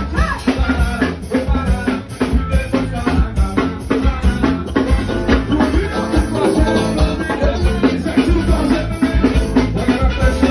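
Live forró band playing an instrumental stretch: a steady, driving beat of drums and shaker with bass and keyboard lines.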